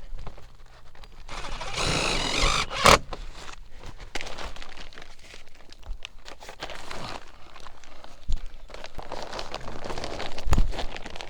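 Crinkling and rustling of the HVAC crossover duct being handled, with scattered knocks, the sharpest about three seconds in.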